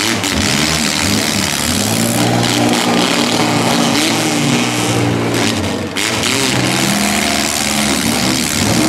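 Several demolition-derby mini truck engines revving hard at once, their pitches rising and falling as the trucks shove against each other in a pile.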